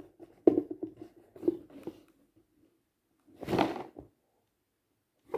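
Handling noises: a few short knocks and taps, then a louder brief rustle or scrape about three and a half seconds in.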